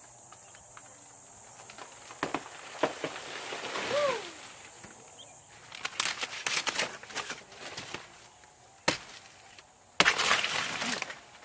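Dry banana leaves crackling and rustling as they are pulled and torn away from the plant by hand, with a loud crackling burst near the end as the bunch's stalk is worked at. Insects drone at a high pitch through the first half and stop abruptly.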